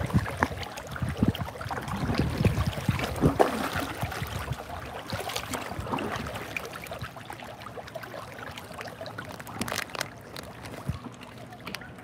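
Kayak paddling on calm water: paddle blades dipping and splashing, with water trickling and dripping and a few short knocks, busier in the first half and quieter later on.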